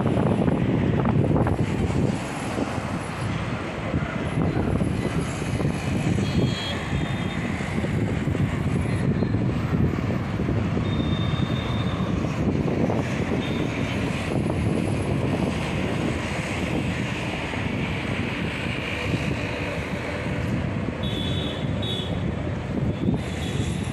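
Steady city road traffic: the mixed rumble of passing cars, motor scooters and buses, with a few brief high-pitched tones now and then.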